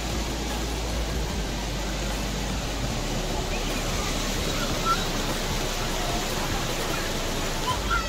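Rushing stream water pouring over boulders below a small waterfall, a steady even rush.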